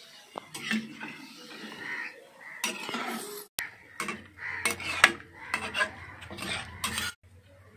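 Metal spatula scraping and clanking against a metal kadhai in repeated strokes, stirring chicken curry just after water has been added.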